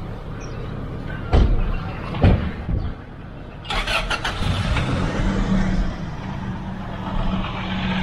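Motor vehicle running with a steady low rumble. Two loud thumps come about one and a half and two and a quarter seconds in, a rush of hiss follows a little later, and a steady low hum sets in about five seconds in.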